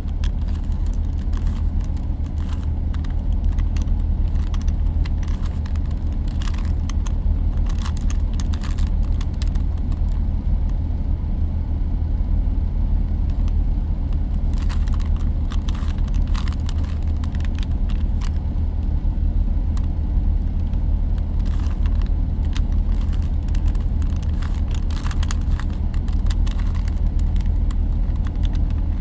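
Plastic Rubik's Cube layers clicking in quick runs as the cube is turned through a sequence of moves, over a loud, steady low hum.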